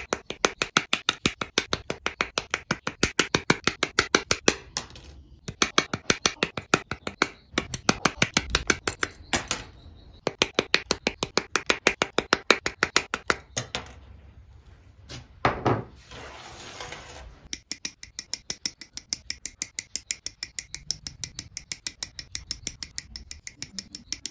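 Hobby nippers snipping plastic model-kit parts off their runners: crisp clicks in fast runs of about five a second, with short pauses between runs.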